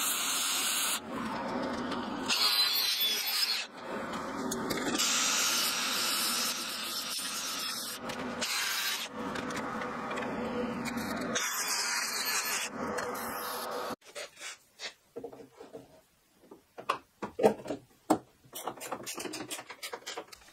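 Steel tube clamped in a vise being worked with a tool: several stretches of steady grinding and rasping of metal, cut off abruptly between them. About two-thirds through this gives way to quieter, scattered clicks and knocks as the bent tube handle is fitted and bolted to the hull.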